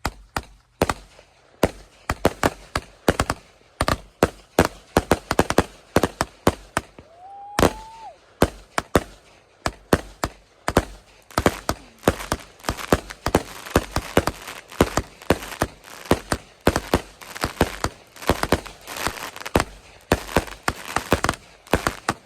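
Consumer fireworks grand finale: a rapid, irregular barrage of bangs that comes thicker and faster after about ten seconds. A short rising whistle sounds about a third of the way in.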